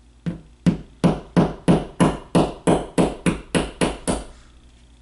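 Claw hammer tapping a plastic wall anchor into a hole in the wall: about a dozen quick, even taps, roughly three a second, that stop about four seconds in.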